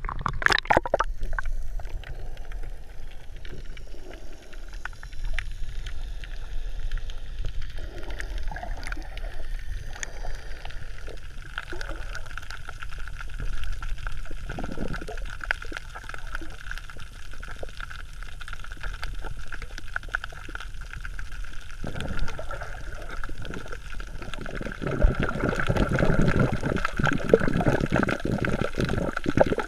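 Water sloshing and gurgling around a camera held at the sea surface and then underwater, heard muffled, with a steady low rumble and many faint scattered clicks. There is a splash at the start and a louder stretch of churning water near the end.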